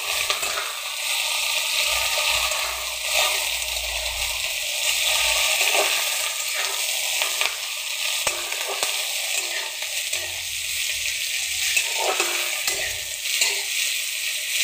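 Sliced onions, garlic and chillies sizzling steadily in hot oil in a metal wok, stirred with a spatula that scrapes against the pan now and then.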